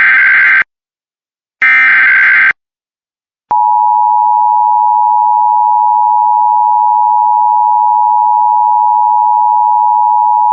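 Emergency Alert System broadcast opening: the end of one burst of the SAME digital header and one more full burst, harsh data warbles about a second long with a second's gap between them. Then, after a short silence, the EAS attention tone comes on and holds steady at one pitch for about eight seconds before cutting off abruptly.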